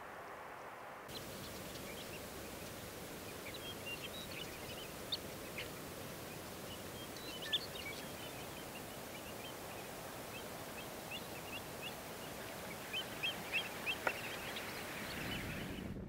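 A flock of shorebirds calling: many short, high calls scattered over a steady background hiss, starting about a second in, with a denser run of louder calls near the end.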